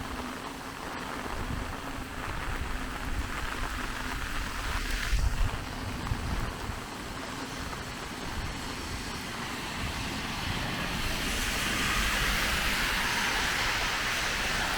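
Heavy rain on a flooded street, a steady hiss that grows louder about eleven seconds in, with low wind rumble on the microphone.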